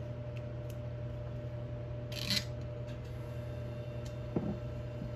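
Duct tape being worked onto a steel hitch ball mount by hand: one short rasp of tape ripping about two seconds in, then a small knock near the end, over a steady hum.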